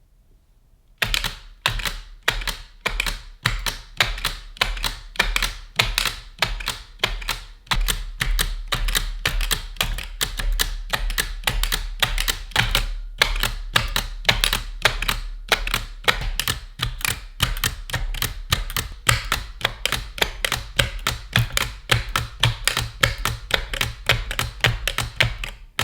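A 1902 Lambert dial typewriter being typed on: a steady run of sharp mechanical clacks, about three to four strokes a second, starting about a second in.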